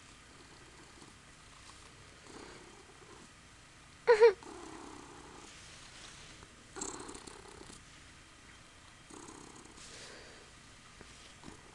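Ragdoll kitten purring, the purr swelling about every two seconds. About four seconds in there is one brief, loud high-pitched squeak.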